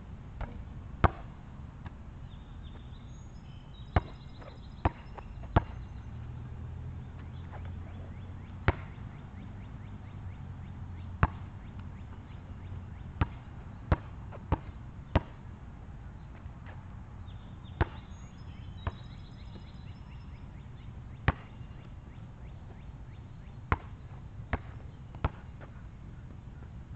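A basketball bouncing on an asphalt court: single sharp thuds at irregular intervals, sometimes three or four about a second apart, sometimes several seconds apart.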